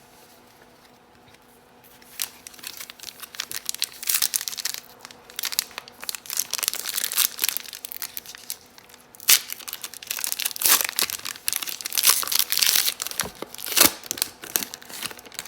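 Trading-card pack wrapper being crinkled and torn open: dense crackling that starts about two seconds in and comes in spurts.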